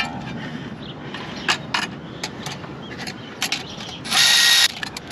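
Scattered metallic clicks of a ratchet and triple-square socket working on the CV axle bolts. About four seconds in, a power tool whirs once for about half a second.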